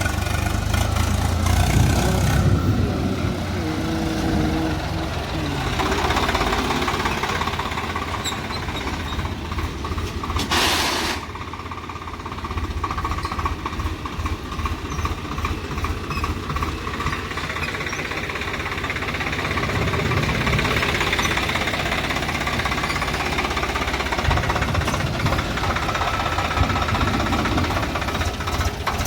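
Diesel engine of heavy machinery running under work, its pitch shifting in the first few seconds, with a brief burst of hiss-like noise about eleven seconds in.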